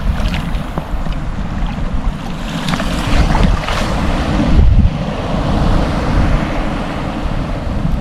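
Strong wind blowing across the microphone in uneven gusts, over the wash of small waves in shallow water.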